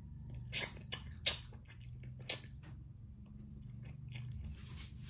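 A person chewing a crisp native guava with loud, sharp crunches, three of them in the first two and a half seconds, then softer chewing.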